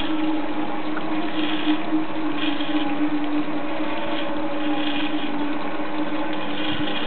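Small cable car's drive machinery running steadily while the gondola travels along the cable: a constant hum with a hiss that swells now and then.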